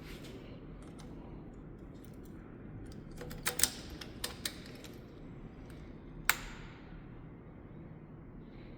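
A few light clicks, then one sharper click with a short ring about six seconds in, over a faint low hum. The motorcycle's engine is not yet running.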